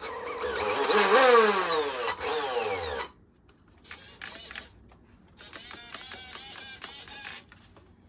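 RC boat's brushless motor whine rising briefly, then winding down in a long falling whine over about two seconds. After a pause comes a quieter run of quick, repeated spin-ups, like throttle blips.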